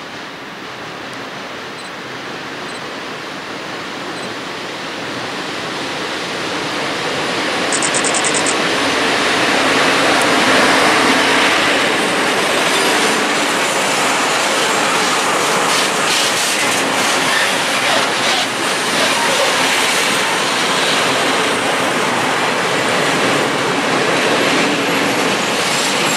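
Freight train hauled by a PKP Cargo ET22 electric locomotive approaching and passing close by, growing louder over the first ten seconds. It then settles into the steady rolling noise and clatter of open coal wagons going past, with wheels clicking over rail joints.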